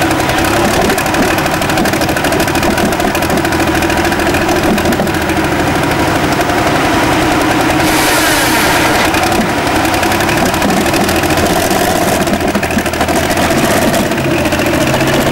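Pro Stock pulling tractor's diesel engine running steadily at a low, idle-like speed. A short burst of hiss comes about eight seconds in.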